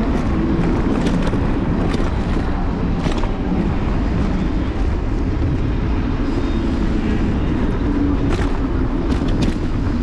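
Wind and road noise from an Apollo Explore electric scooter in motion, picked up by a handlebar-mounted GoPro: a steady, loud rumble with a few light clicks and rattles.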